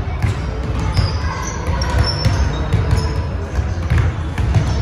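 Basketball bouncing on a hardwood gym floor, with a few short sneaker squeaks and players' voices in a large hall.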